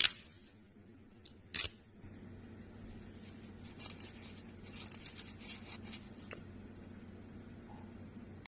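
A thin rose-gold film being peeled and crumpled off a fingernail, making a soft crackling with many small ticks. A few sharp clicks come in the first two seconds.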